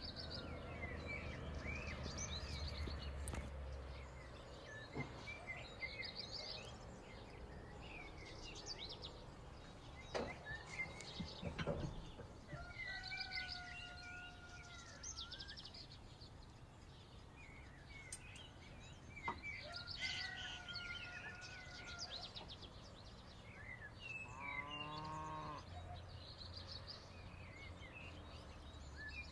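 Outdoor rural ambience: small birds chirping and twittering throughout. There are a few sharp knocks about ten to twelve seconds in, and a short low animal call, like a moo, about twenty-five seconds in.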